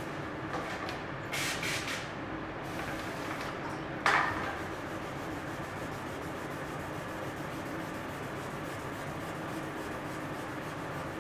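Wet sanding of car clear coat with 2000-grit sandpaper: a steady rubbing scrub, with two short hissy bursts about a second and a half in and about four seconds in.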